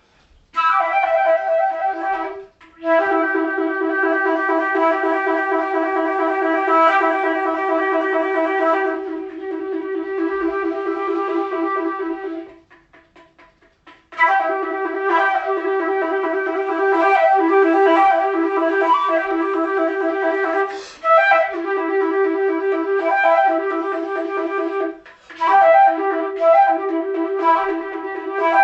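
Music: a flute-like wind instrument playing long, wavering notes in a narrow pitch range. It breaks off briefly a few times, once for about a second and a half midway.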